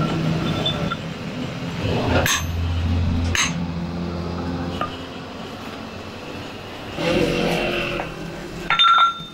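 Steel bevel-gear shafts being set down on a pile of other shafts: a few sharp metal clinks, then a louder ringing metal clank near the end, over a steady low hum.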